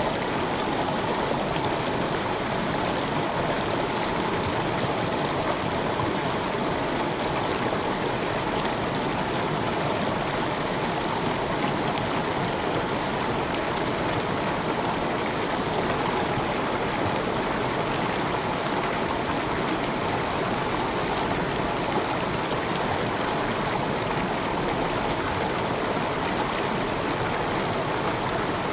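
River water flowing steadily, a continuous even rush without any single splashes or breaks.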